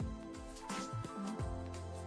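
Background music with a steady beat, about one drum hit every 0.7 seconds, over held bass and melody notes.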